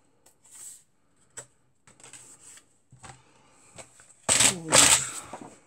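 Cardstock being handled on a paper trimmer: a few soft taps and rustles, then a loud scraping rustle of paper just under a second long, about four seconds in.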